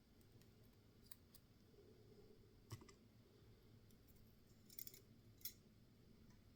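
Faint, scattered small metal clicks and taps from lock pins and a small tool being handled during the take-down of a Yale pin-tumbler lock. The sharpest click comes a little under three seconds in, and a short cluster follows near the end.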